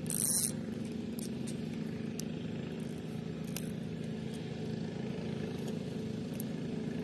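A boat engine idling steadily under the scene, with a brief loud rustle right at the start and a single sharp click about three and a half seconds in.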